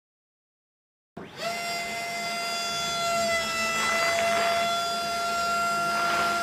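Small electric motor of a miniature dump truck whining at one steady pitch as the tipper bed lifts. It starts suddenly about a second in, with a short rise in pitch as it spins up.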